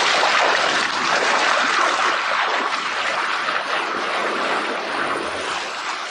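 Hippopotamuses charging and fighting through shallow water: loud, continuous splashing and churning of water that starts abruptly and fades a little toward the end.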